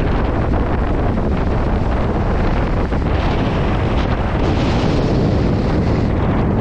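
Strong storm wind buffeting the microphone in a loud, steady rumble, with waves breaking on the rocks along the shore beneath it.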